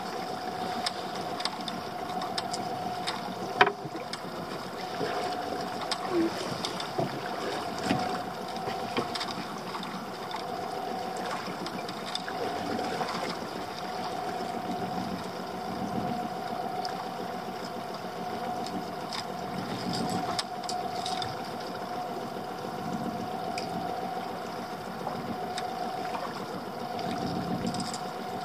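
Small boat's engine idling steadily, a constant tone under the noise, with scattered clicks and knocks from handling on deck and one sharp click a few seconds in.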